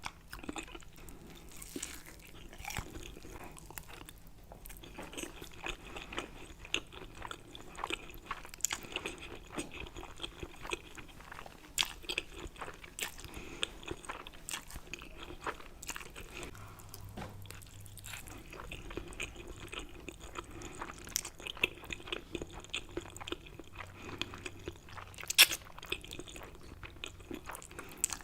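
Close-miked chewing and biting: a person eating with wet, crunchy mouth clicks, the sharpest one about 25 seconds in.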